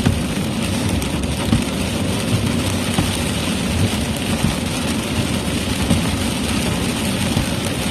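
Steady road and engine noise heard inside a moving car at road speed: a low rumble with a hiss above it, and a few faint thumps.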